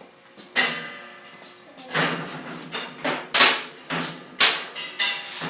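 Hammer striking metal again and again, as when knocking parts off a go-kart frame. One blow comes about half a second in, then a quicker irregular run of about eight ringing strikes from two seconds on.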